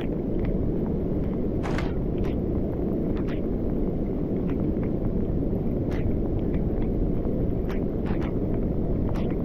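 Steady low wind rumble on the camera's microphone, with irregular light taps of rain hitting the camera and rain gear.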